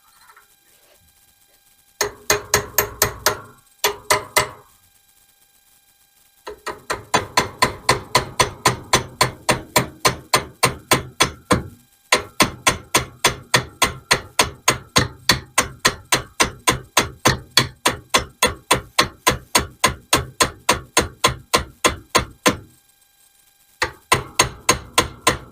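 Small hammer tapping the gas tube roll pin into the AR-15 gas block, rapid even strikes about four a second in several runs with short pauses.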